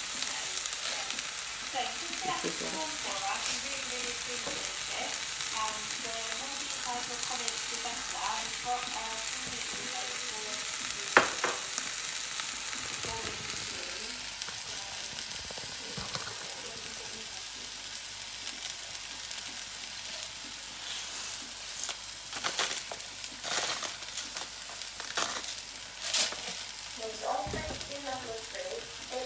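Chopped onions sizzling steadily in hot oil in a skillet, with small pops. A few sharp clinks of a fork against a ceramic bowl sound about 11 seconds in and again near the end.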